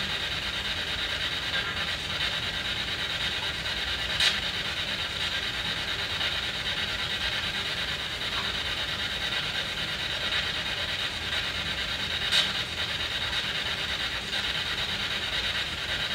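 SB7 spirit box sweeping through radio stations: a steady hiss of choppy radio static, with two sharp clicks about four seconds in and again about eight seconds later.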